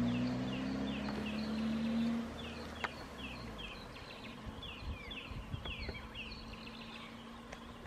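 A vehicle engine hums steadily for about the first two seconds, then fades to a faint drone. Over the rest, small birds chirp in many short, high notes that fall in pitch, with one sharp click about three seconds in.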